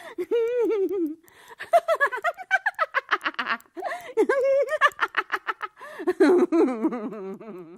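A man and a woman laughing, in about four bouts of quick ha-ha pulses with short pauses between.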